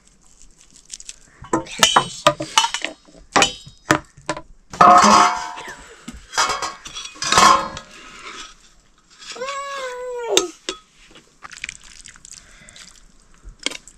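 Metal pots and utensils clinking and clattering in a kitchen, with louder clanks about five and seven seconds in. About ten seconds in comes one short high cry that rises and then falls in pitch.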